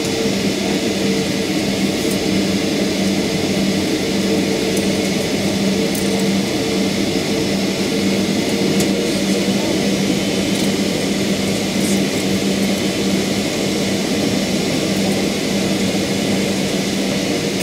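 Steady whir of airport gate machinery: an even rushing noise over a low steady hum, with a few faint ticks.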